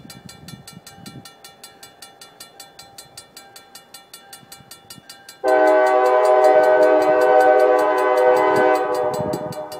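Locomotive K5LA five-chime air horn sounding one long blast of about three seconds, starting abruptly just past halfway and fading out near the end. Before it, a faint rapid ringing of about four strikes a second.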